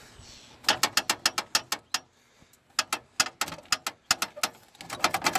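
Quick runs of sharp metal clacking, about eight clacks a second, in three bursts: a crew truck's loose hood rattling as it is rocked by hand, because its cracked mounting no longer holds it firm.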